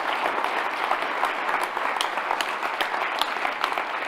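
Audience applauding: many hands clapping steadily in a dense patter at the end of a talk.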